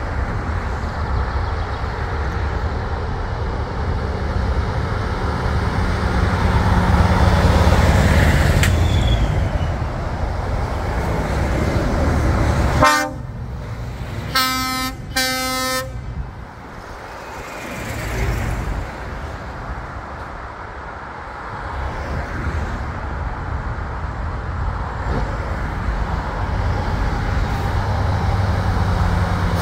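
Vintage truck engines rumbling as trucks pass, loudest about eight seconds in. About thirteen seconds in a truck horn sounds three times: a short toot, then two longer blasts.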